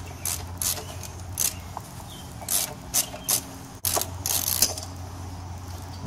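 A hand tool backs a small 6 mm fastener out of a motorcycle's exhaust bracket, making a string of irregular metallic clicks and scrapes, with one sharp click near the middle. A steady low hum runs underneath.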